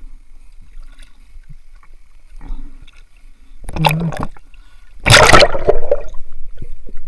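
Water splashing and gurgling right at the microphone: a short splash a little under four seconds in, then a louder, longer splash at about five seconds.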